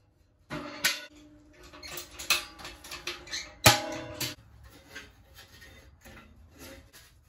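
Steel parts of a Camp Chef cylinder wood stove being handled: a series of sharp metal clanks and knocks that ring on briefly, as the side rack is moved, the door shut and latched, and a stovepipe section set onto the stove top. The loudest clank comes a little under four seconds in.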